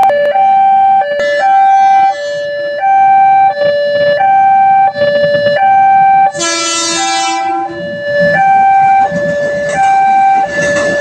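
Railway level-crossing alarm sounding a loud two-tone siren, alternating a high and a low note about every seven-tenths of a second. About six seconds in, a horn blares for about a second and a half over it.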